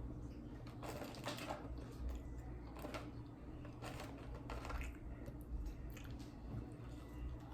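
Close-up eating sounds: a person chewing and biting food, with short wet mouth noises at irregular moments over a faint low hum.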